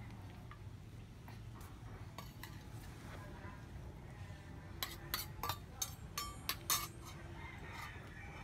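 A quick run of sharp clinks and knocks, about six to eight in two seconds, starting about five seconds in, over a low steady hum.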